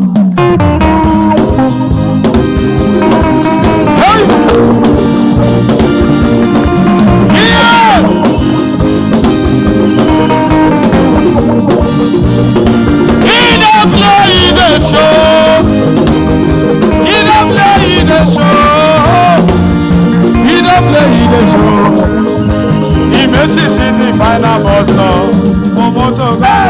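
Loud, steady music with a drum kit and singing voices.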